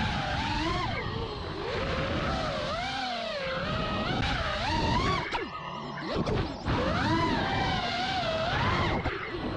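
FPV racing quadcopter's four brushless motors (T-Motor F40 IV on 6S) whining, the pitch swooping up and down with constant throttle changes. It drops sharply a few times a little past the middle as the throttle is chopped.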